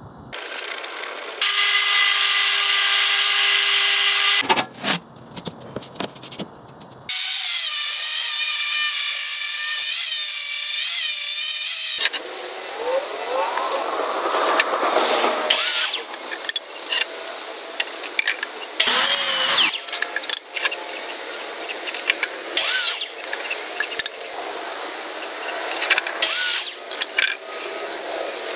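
Woodworking power tools working wood in a run of separate takes: a steady motor whine for about three seconds near the start, then a motor whose pitch wavers up and down, then many short bursts that start and stop suddenly.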